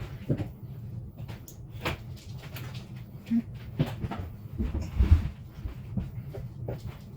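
Scattered clicks and knocks of refrigerator parts being handled during reassembly, over a steady low hum, with a heavier thump about five seconds in.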